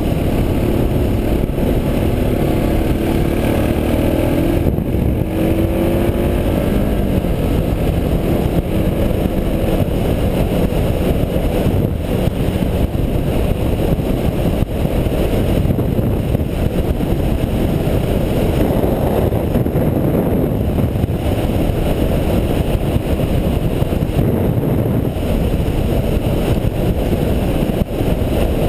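Suzuki DR650's single-cylinder engine running at road speed under heavy wind rush on the microphone. Its note rises a little over the first several seconds, then is mostly buried in the steady wind noise.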